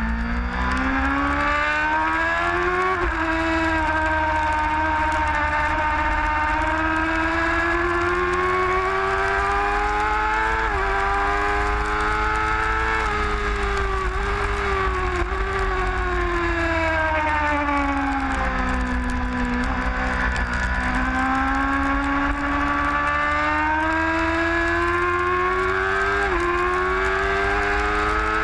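Sport motorcycle engine heard from onboard at track speed. The revs climb and drop sharply at each upshift, fall away in the middle while the bike slows for a corner, then climb again. A steady low wind rumble on the microphone sits underneath.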